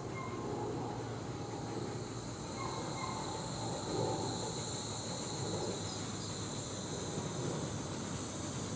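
Miniature railway train approaching in the distance, with a steady running noise from the locomotive and wheels on the track.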